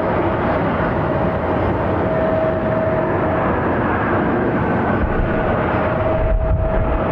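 Jet airliner engines, a Boeing 767-400ER's, running with a steady roar and a steady whine over it, a deeper rumble building about five seconds in.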